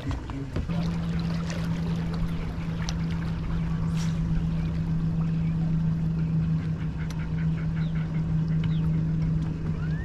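Bass boat's outboard motor running at a steady speed, a constant hum with water and wind noise; the hum sets in about a second in.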